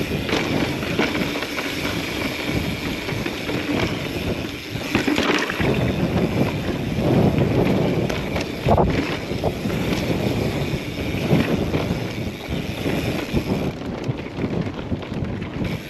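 Mountain bike rolling fast over sandstone slickrock, with wind buffeting the rider-mounted camera's microphone. Tyre noise and the rattle of the bike run throughout, with sharp knocks from the bike over bumps a few times.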